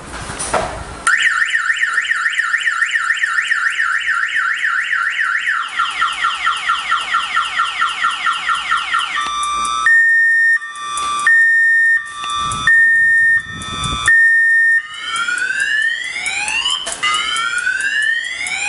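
A knock, then the lock platform's electronic alarm siren going off and cycling through its tones: a fast warble, a slower sweeping warble, a two-tone hi-lo wail, then rising whoops. It cuts off suddenly at the end. It is the anti-theft alarm of an RFID motorcycle clamp lock, set off at the platform.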